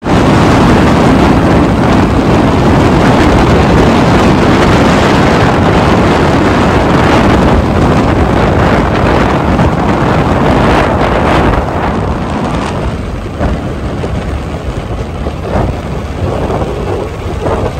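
Heavy wind rushing and buffeting over the microphone of a motorcycle riding at speed, with road and engine noise mixed in underneath. It eases a little after about eleven seconds.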